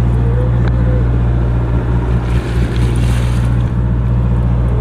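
Sportfishing boat's engines running with a steady low drone, with a brief hiss about two to three seconds in.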